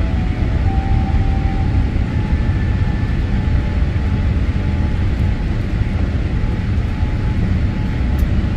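Steady low rumble of a jet airliner's engines and rushing air heard inside the passenger cabin on final approach to landing.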